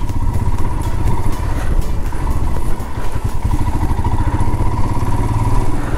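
Royal Enfield Himalayan's single-cylinder engine pulling steadily in first gear up a rough, dusty off-road mountain track, a continuous low rumble.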